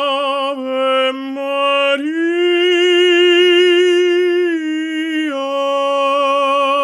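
Operatic voice singing long sustained notes with strong vibrato, stepping up to a higher held note about two seconds in and dropping back to the first note near the end.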